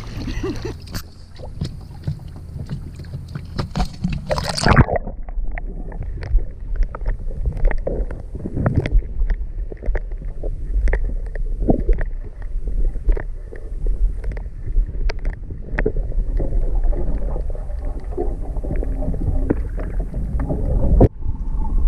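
Water sloshing with many irregular knocks and scrapes, turning duller and more muffled about five seconds in.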